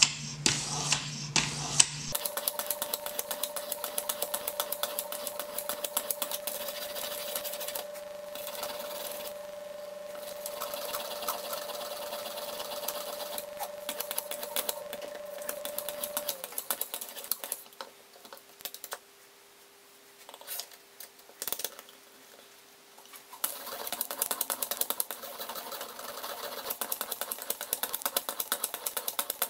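Fine-grit whetstone on the guide rod of a fixed-angle knife sharpener rubbing back and forth along a knife edge in quick, regular strokes, polishing the edge. It pauses for a few seconds past the middle, then the strokes start again.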